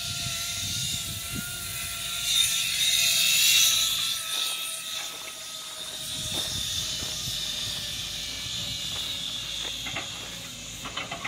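Zipline trolley running along its steel cable: a whirring hiss with a steady whine that falls slowly in pitch, loudest about three seconds in. From about five seconds in, footsteps crunch on a gravel path.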